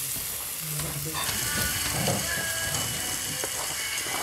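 Meat sizzling and crackling on a grill pan over a portable gas stove, with a few light clicks mixed in.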